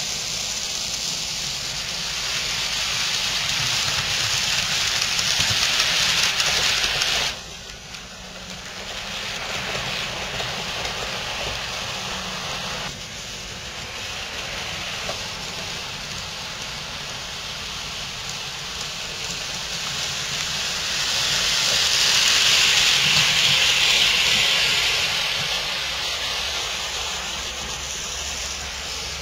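HO and N scale model trains running on the layout: a steady hissing rush of small electric motors and metal wheels on the rails. It drops suddenly about seven seconds in and swells again between about 21 and 25 seconds, as a train passes close by.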